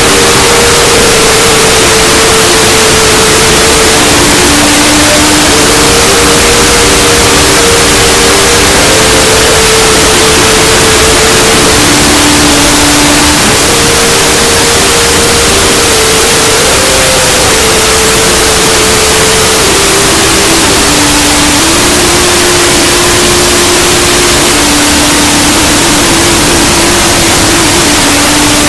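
Deliberately overdriven 'earrape' audio: very loud, clipped noise filling the whole range, over a slow string of held tones that step between a few pitches every second or two.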